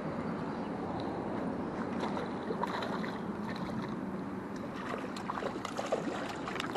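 Steady rush of river current while a spinning reel is cranked, with a hooked trout splashing and thrashing at the water's surface from about five seconds in.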